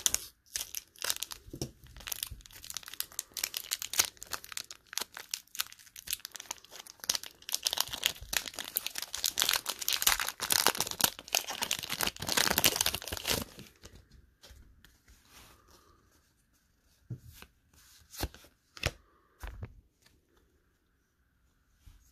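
Foil wrapper of a Pokémon TCG booster pack crinkling and tearing as it is opened, dense and continuous for the first thirteen seconds or so. After that come only a few soft taps and rustles of the cards being handled.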